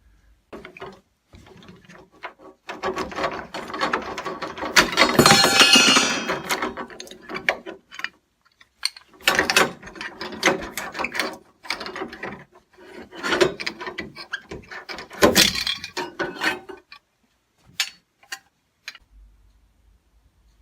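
Old hallway doorknob being worked loose and pulled off the door by hand: its metal parts rattle and click in bursts, loudest about five to six seconds in, then a few scattered clicks near the end.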